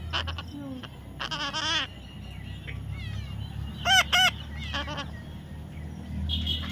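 Parrot calling: a wavering call about a second in, then two short, loud arched squawks close together about four seconds in, followed by a softer call and faint chirps.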